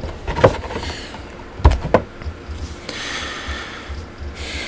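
Handling noise: a few sharp knocks and clicks, two of them close together, then a stretch of rustling.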